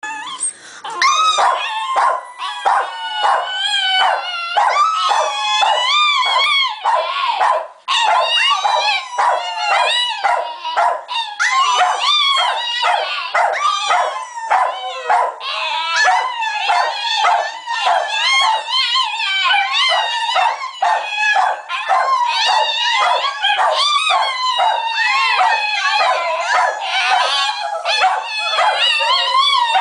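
Italian greyhound crying and howling for attention: a near-continuous run of high, wavering yips and whines, several a second, with a brief break about eight seconds in.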